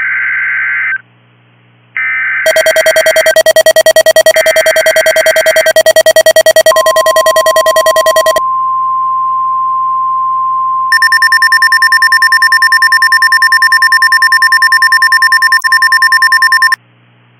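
NOAA Weather Radio alert tones: three short warbling bursts of the digital alert header, then the long steady weather radio warning alarm tone for about ten seconds. Over them, two loud pulsing electronic alarms sound: a harsh buzzing one for about six seconds from a couple of seconds in, and a high beeping one from about eleven seconds in to near the end.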